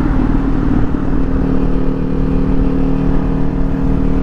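A 2022 Kawasaki Ninja 400's parallel-twin engine runs at a steady, unchanging engine speed through its stock exhaust, heard from the rider's position.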